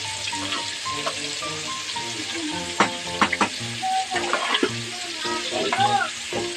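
Whole boiled eggs sizzling in hot oil in a nonstick kadhai. From about three seconds in, a metal spatula scrapes and knocks against the pan several times as the eggs are turned.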